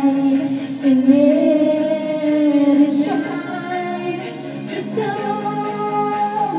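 A woman singing long held notes into a handheld microphone, the pitch stepping to a new note about every two seconds.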